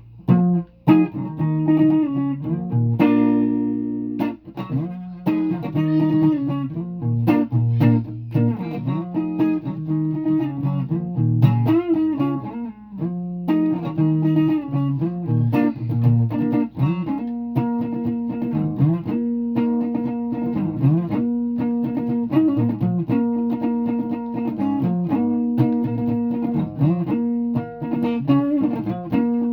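A guitar being played: a continuous run of plucked notes and chords, started straight after a spoken count-in.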